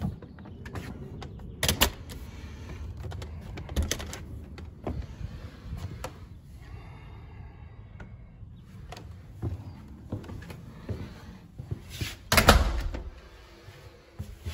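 Exterior hinged door being tried on its newly installed threshold, with several knocks and a heavy thud about twelve seconds in as the door shuts against the threshold and kerf-seal weatherstripping.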